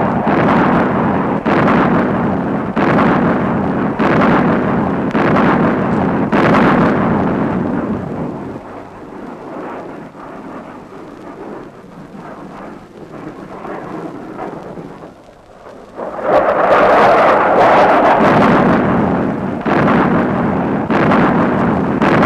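Explosions in a barrage, one blast after another over a heavy rumble. Partway through it dies down to a quieter rumble for several seconds, then comes back loud about sixteen seconds in.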